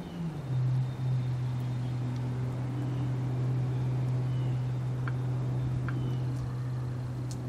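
A steady low hum runs on without change, with a few faint clicks in the second half.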